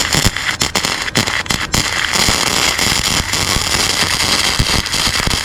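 A small welder's arc crackling and spitting as it lays a weld on exhaust pipe. It is choppy with a few short breaks in the first two seconds, then steady.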